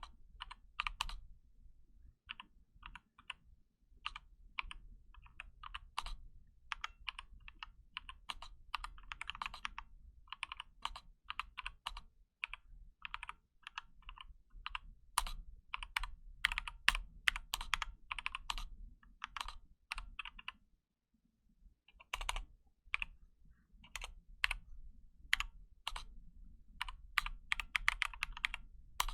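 Typing on a KBD75 mechanical keyboard with Novelkey Cream linear switches: irregular key clacks at a slow, one-handed pace, with a pause of about a second and a half about two-thirds of the way through.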